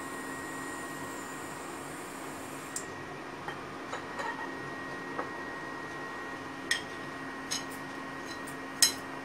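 An induction cooktop hums steadily under a stainless steel kadhai of hot ghee. From about three seconds in, the ghee gives scattered sharp ticks and pops. These come more often and louder in the second half, once cumin seeds are crackling in it for the tadka.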